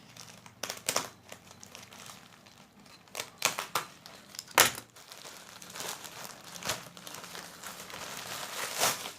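Earphone package being opened by hand: irregular crinkling and rustling of the wrapping, with a few short sharp snaps, the loudest about four and a half seconds in.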